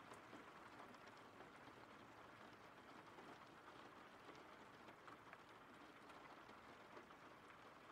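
Faint, steady rain: an even hiss of falling rain with scattered small drop ticks.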